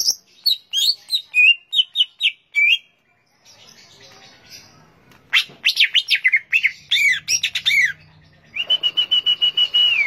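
Cucak ijo (green leafbird) singing loudly. It gives a string of sharp chirping notes, then about halfway a quick run of falling slurred notes, and near the end a fast trill held on one high pitch.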